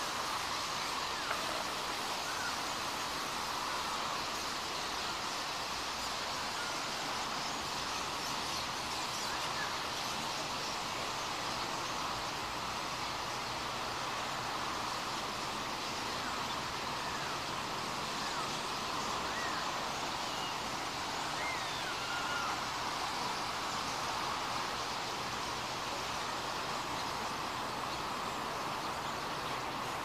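A large flock of birds calling all at once, making a steady, dense chatter. A few single rising calls stand out from it now and then.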